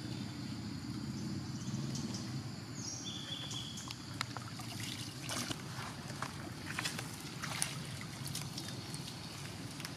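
Water sloshing and splashing as a young monkey moves through a shallow pool and climbs out. Between about four and eight seconds in there is a run of sharp splashes and drips.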